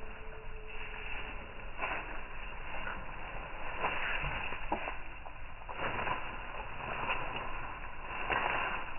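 Bamboo leaves rustling and crackling as a Newfoundland dog bites and tugs at a leafy sprig held in a hand, with irregular crackles through the rustle.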